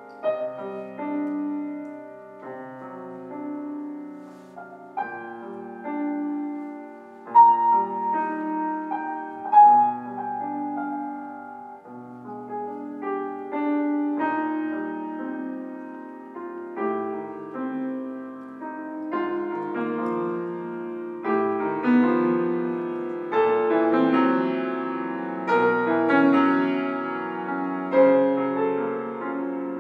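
Yamaha grand piano played solo, with overlapping held notes and chords. It grows fuller and louder from about halfway through.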